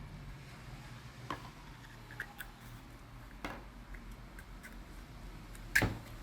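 A few separate clicks and knocks, as from handling parts, the loudest near the end, over a low steady hum.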